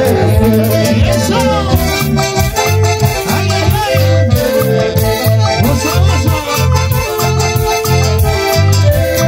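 A live band playing Latin dance music, with a saxophone section, electric guitar and keyboard over a pulsing bass line.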